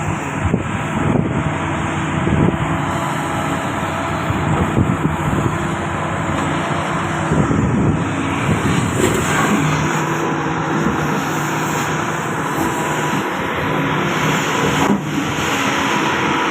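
Doosan DX220LCA hydraulic excavator running steadily under work, its diesel engine holding a constant drone, with a sharp knock near the end.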